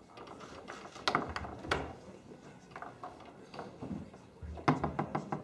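Tornado foosball table in fast play: sharp knocks of the ball being struck by the men and hitting the table walls, with the rods clacking. There are a few single knocks, then a quick flurry of knocks near the end.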